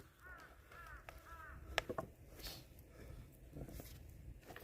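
Crows cawing faintly, several arched calls in a row, with a couple of short sharp knocks about two seconds in.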